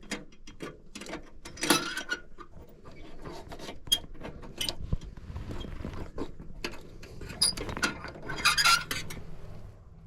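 Hand tools and metal furnace parts clinking, tapping and rattling in irregular bursts while the flame sensor of a gas furnace is being moved, over a low steady hum.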